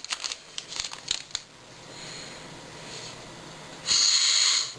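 Card pack wrapper crinkling and crackling as it is opened, dying away after about a second. Near the end comes a short, loud rush of noise.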